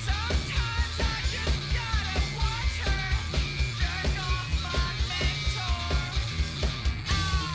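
Rock music with a fast, steady beat of about four pulses a second and a high, wavering lead line over it.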